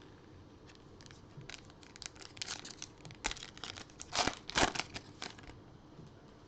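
A trading-card pack's wrapper being torn open and crinkled: a run of crackling tears over a few seconds, loudest about four seconds in.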